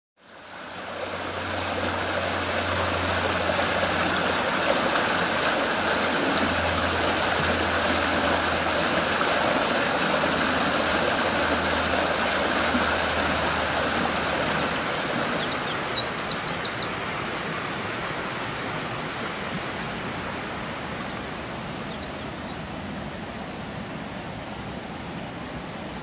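Woodland stream rushing over shallows, a steady wash of running water that fades in at the start. A bird calls with a few quick high chirps about midway through.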